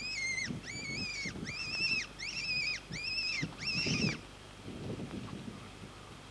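Six high squealing calls in an even series, about one every three-quarters of a second, each a short held note that swoops up at the start and down at the end. Low thumps and rustling run beneath.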